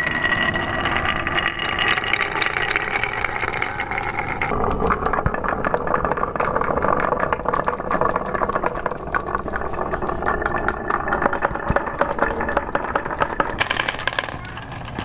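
Marbles rolling through carved wavy grooves in wooden rails, a continuous rolling sound dense with rapid clicks as they knock against one another and against the wood.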